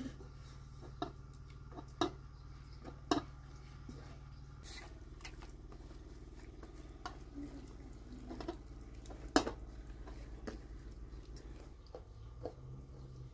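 Hands kneading wet bread dough in a large metal pot: soft squishing with irregular sharp knocks and taps as the dough and hands strike the pot, the loudest about nine seconds in. A steady low hum sits underneath.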